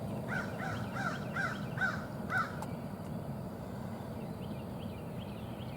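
A crow cawing six times in quick succession, about two caws a second, then stopping; faint small bird chirps follow.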